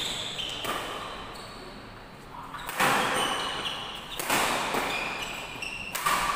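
Badminton doubles rally: rackets striking the shuttlecock about five times, each sharp hit ringing on in a large hall, with short high squeaks of shoes on the court mat between the shots.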